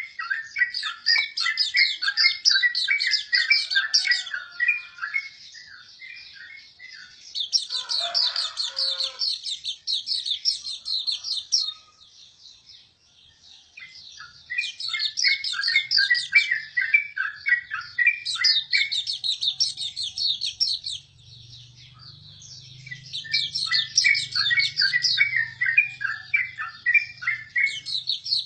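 Hume's white-eye singing: long phrases of rapid, high twittering notes, four bursts of several seconds each with short pauses between them.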